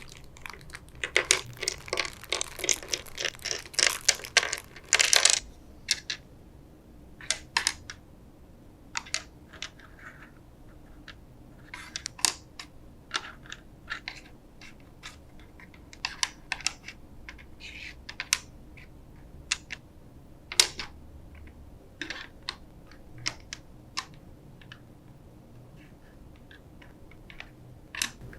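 Small hard plastic parts of a mechanical keyboard clattering and clicking as they are handled. A dense run of clatter lasts a few seconds, then scattered single clicks follow.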